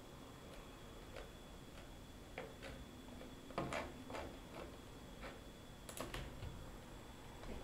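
Faint, irregular clicks of a computer mouse as its scroll wheel and button are worked, with the sharpest click about six seconds in.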